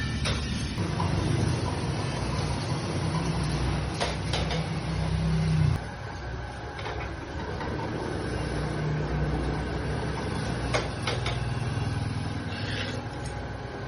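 Metal lathe running with a steady low motor hum and a few sharp clicks; the hum drops in level about six seconds in.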